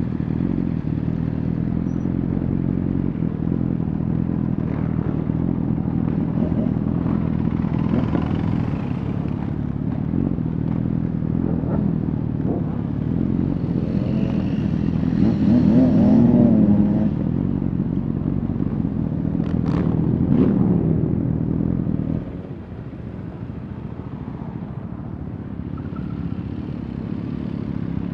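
Honda CBR1000RR Fireblade's inline-four with an aftermarket Shark Factory exhaust, running steadily under way. Its pitch rises and falls about halfway through, with a couple of sharp clicks shortly after, and the engine sound drops noticeably quieter near the end.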